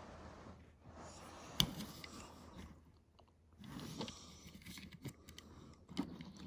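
Small toy car pushed back and forth across a fabric couch arm, its wheels rolling and scuffing on the upholstery in two stretches, with a sharp click about a second and a half in and another near the end.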